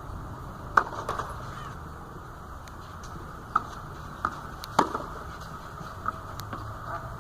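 About five sharp knocks of a tennis ball being struck and bouncing during play, spaced unevenly. The loudest comes about a second in, and another strong one near five seconds in.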